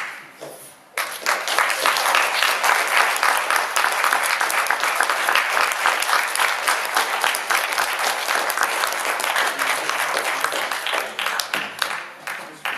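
Audience applause: many hands clapping, starting abruptly about a second in and dying away near the end.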